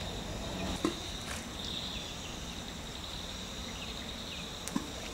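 Insects chirring steadily in one high band over a steady low rumble, with two sharp clicks, about a second in and near the end.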